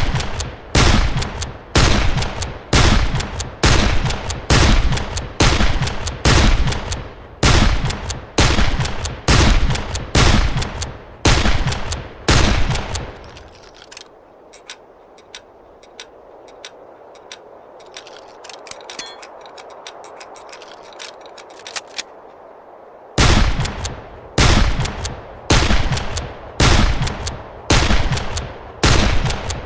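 Henry lever-action rifle firing repeatedly, a little more than one shot a second, each shot with a short echoing tail. About thirteen seconds in, the firing stops for roughly ten seconds, leaving only a faint noise with a few small clicks, and then it resumes at the same pace.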